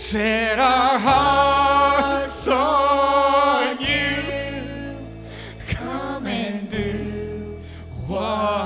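Live worship song: sung vocals with long held, wavering notes over acoustic guitar and low held chords that change every few seconds.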